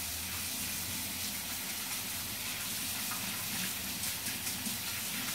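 Water running steadily from a kitchen faucet into a stainless steel sink, splashing over hands being rubbed and rinsed under the stream.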